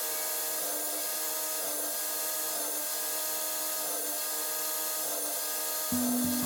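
A power tool runs steadily on wood, a constant whine over a noisy hiss. A lower, pulsing sound starts near the end.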